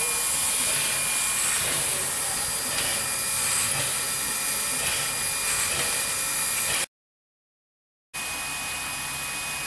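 Narrow-gauge steam locomotive NM25 standing with steam hissing steadily. The sound cuts out completely for about a second near the end, then returns a little quieter.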